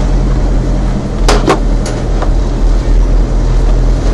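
Light truck driving, heard from inside the cab: a steady low engine and road rumble, with two sharp knocks about a second and a half in and two fainter knocks shortly after.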